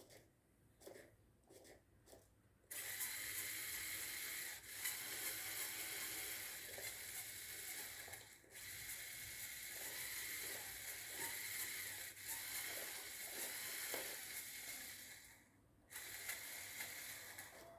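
Motors and plastic gears of a Lego Technic buggy whirring as it drives, starting abruptly after a few faint clicks and stopping and restarting several times.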